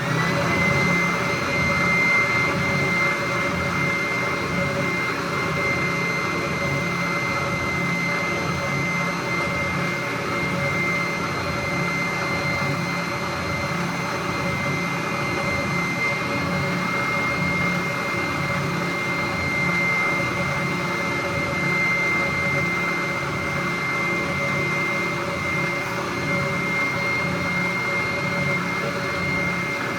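Small electric palm sander switched on and spinning up with a brief rise in pitch, then running steadily with a high motor whine while sanding the edge of a cedar board.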